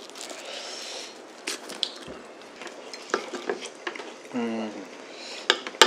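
A metal spoon clinking and scraping against a ceramic soup bowl while eating, with several sharp clinks. A crusty slice of toast is torn by hand near the start.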